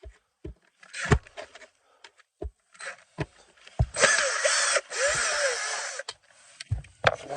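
Cordless drill running for about two seconds with a wavering pitch and a brief break, backing out a screw that holds the blower motor resistor. Before it come scattered clicks and knocks of the drill and parts being handled.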